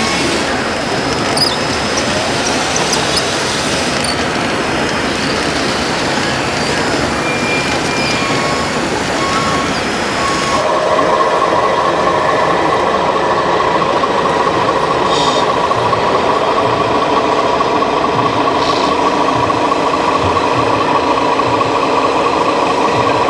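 Simulated diesel engine sounds from radio-controlled scale model trucks and a crawler loader, with short high electronic tones mixed in. About ten seconds in the sound changes abruptly to a steadier, humming engine idle.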